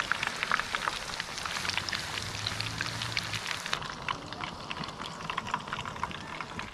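A whole masala-coated fish deep-frying in hot oil: a steady sizzle full of small, rapid crackles and pops.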